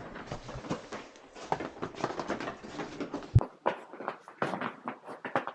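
Footsteps crunching and scraping irregularly on the glacier's ice and hard snow, with a single sharp knock about three and a half seconds in.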